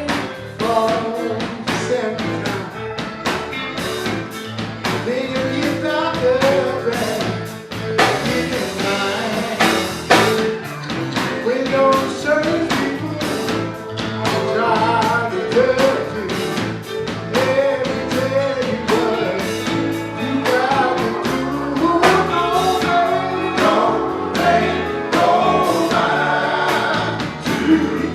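A song with singing over a band: a sung melody carried over guitar and drums with a steady beat.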